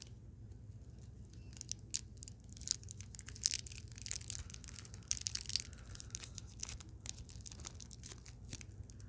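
Plastic twist wrapper of a Jolly Rancher hard candy being unwrapped right against a small microphone: sharp, irregular crinkling and crackling, densest about midway through.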